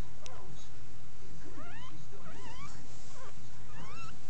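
Dog whimpering: a run of short, high-pitched whines, each rising in pitch, several in the middle and a few more near the end.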